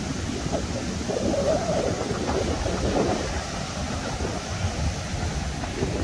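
Gusty wind buffeting the microphone over the steady rush of heavy surf breaking on a beach, as strong wind rises ahead of rain.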